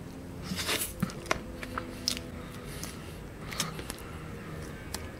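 Faint close-up eating sounds from someone eating ice cream: scattered soft wet mouth clicks and smacks of chewing, over a low steady hum.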